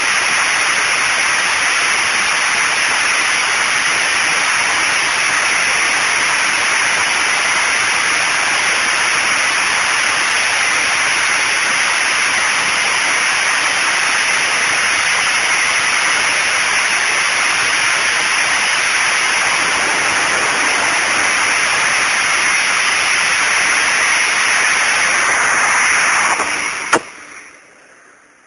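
ED-200 200 kW diesel generator with a tank-derived engine, running loud and steady; close up it comes through as a dense wash of noise with no separate beats. Near the end there is a single knock, and the sound falls away sharply to a faint low hum.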